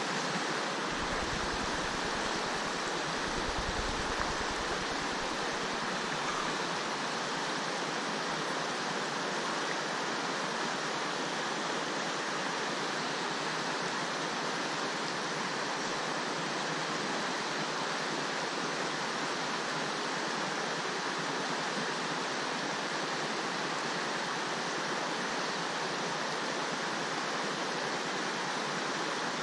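Steady rush of river water running over rocks, with a brief low rumble a second or so in.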